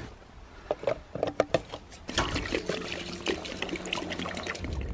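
Fuel poured from a can through a metal funnel into a paramotor's tank, splashing steadily from about two seconds in, after a few knocks as the can is handled.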